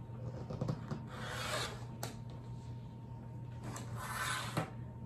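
Rotary cutter rolling through pant fabric along an acrylic ruler on a cutting mat: two stretches of cutting of about a second each, with a sharp click after each, as the blade or ruler knocks the mat.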